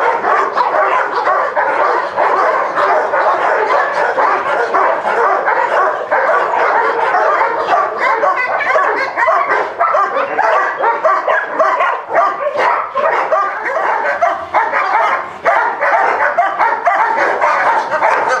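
Many dogs barking and yelping at once, a dense, unbroken chorus that never pauses.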